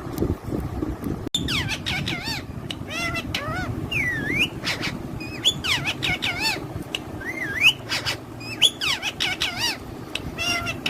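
Parrots calling: a quick run of short squawks and sweeping whistle-like calls, rising and falling in pitch, starting about a second in, over a steady low background noise.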